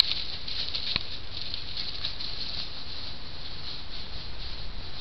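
Dry leaves and bare brush rustling steadily, with one sharp click about a second in.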